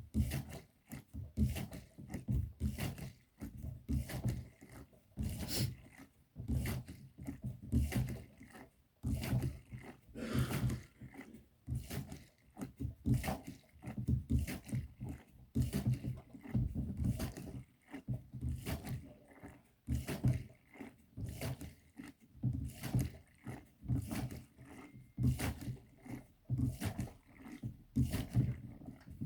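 Hand siphon pump worked over and over, about two strokes a second, pushing kerosene through a hose into a kerosene heater's tank.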